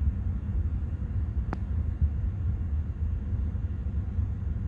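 Wind buffeting the microphone: a steady, uneven low rumble, with a single sharp click about one and a half seconds in.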